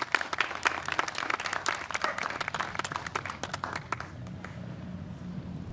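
Audience applauding with many hands clapping, dying away about four seconds in.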